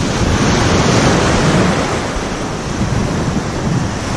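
Small sea waves breaking and foaming water washing over the shallows, a steady rush that swells and eases.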